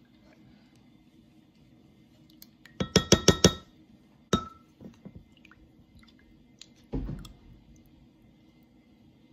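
A sauce bottle tapped against the rim of a glass measuring cup to shake out the last of the hoisin sauce: a quick run of about six sharp clinks, then a single ringing clink and a duller knock a few seconds later.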